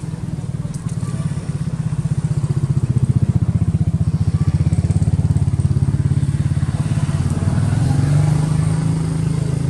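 Motorcycle engine running with a fast, even pulse, getting louder over the first few seconds and holding there.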